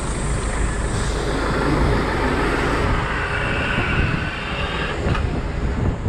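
Steady rumble of vehicle noise, with a faint high whine in the middle.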